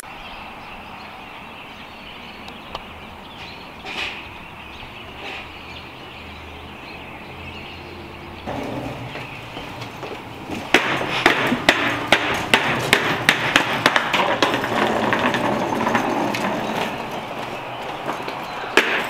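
Low steady outdoor background, then from about ten seconds in a wheeled suitcase bumping down a flight of stairs with footsteps: a dense, uneven run of knocks and clatter.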